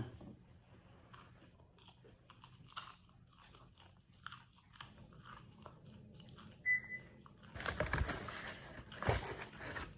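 Popcorn being chewed close to the microphone: a run of small crunches, with two louder, longer crunching stretches about eight and nine seconds in.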